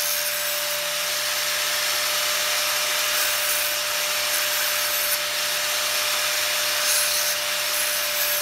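Angle grinder running with a steady whine while the ends of 8 mm metal linear rails are held against the spinning disc to bevel them, giving a continuous grinding hiss that swells now and then as the rods bite harder.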